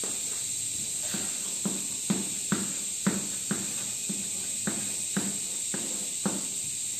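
Chalk drawing short lines on a chalkboard: about a dozen quick strokes, roughly two a second, over a steady hiss.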